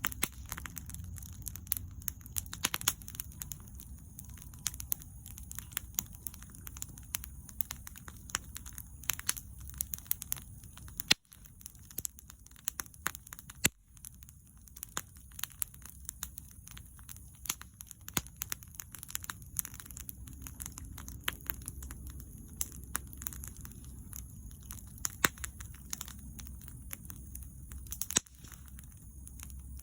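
Wood bonfire crackling, with many irregular sharp pops over a low steady rumble of the flames.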